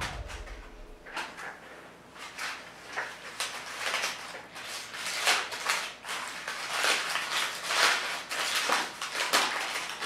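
A crumpled sheet of paper being unfolded and smoothed out by hand: a run of irregular crinkles and rustles.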